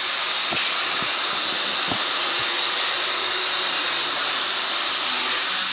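Steady hiss from a machine cutting 90-10 copper-nickel in a fabrication shop, with a couple of faint ticks.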